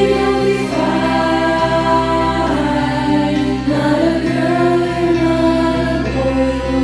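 Background music: slow, sustained tones with a singing voice.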